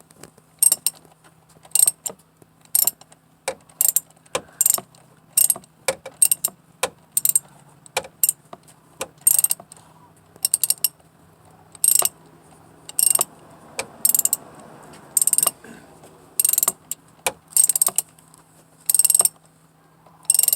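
Socket ratchet wrench being worked back and forth on the purge valve's mounting bolt, the pawl clicking in short rasping bursts about once a second as the bolt is turned out.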